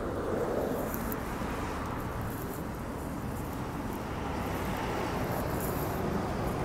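Road traffic on a busy city street: a steady rush of passing cars and a truck, tyres and engines blending into one even noise that swells slightly near the end.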